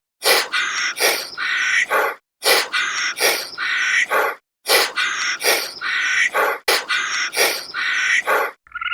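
Bird calls: a phrase of several short, harsh notes lasting about two seconds, repeated four times in identical form with brief gaps between.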